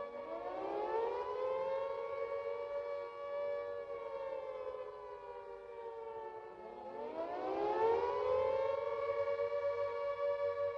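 Carter civil defence siren wailing with two notes sounding together. It winds up from low pitch, holds and slowly sags, then winds up again about seven seconds in.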